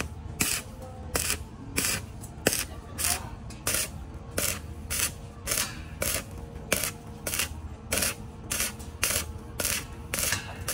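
Steady back-and-forth scraping of a hand tool worn against a surface, about one and a half even strokes a second.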